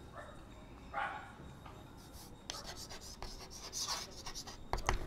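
Chalk scratching on a blackboard in short, irregular strokes as words are written by hand.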